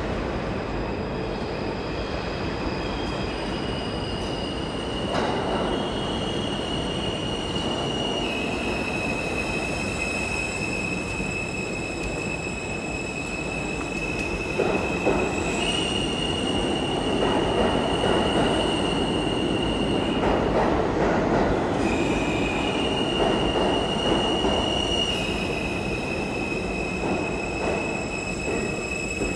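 New York City subway train running, with rumble from the car and high steady squealing tones that jump to new pitches several times, louder in the second half.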